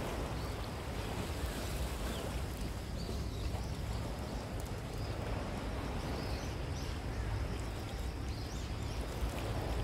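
Steady seaside wind and surf noise, strongest in the low range, with no distinct events standing out.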